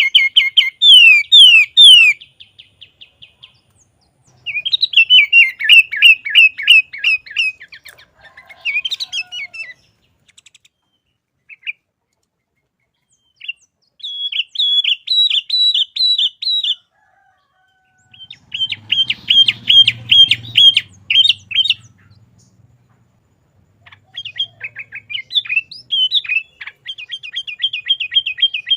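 Sooty-headed bulbul (kutilang) singing loudly in repeated phrases of rapid, quick-fire notes, about six phrases a few seconds apart.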